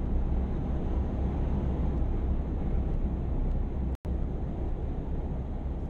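Steady low rumble of a vehicle on the move. It cuts out for an instant about four seconds in.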